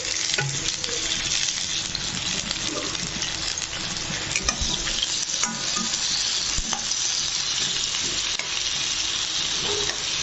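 Ivy gourds (kundru) frying in a little oil in a metal pan: a steady sizzle, with scattered scrapes and clicks as a metal utensil stirs them.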